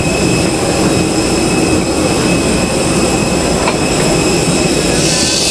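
Jet airliner engine noise: a steady, loud rush with several high, steady whining tones over it.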